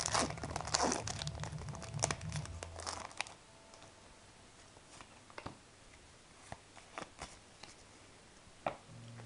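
Foil wrapper of a Pokémon trading card booster pack crinkling and tearing open for about three seconds, then only a few faint light ticks.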